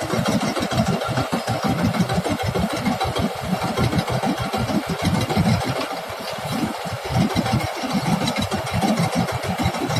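Rice combine harvester running steadily at work, its engine and machinery making a continuous hum over an uneven low rumble.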